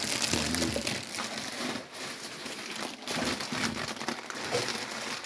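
Collard green leaves rustling and crinkling as handfuls are lifted and pushed into a crock pot.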